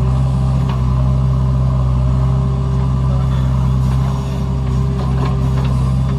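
Heavy diesel engine running at a steady speed, with a few faint clicks over it.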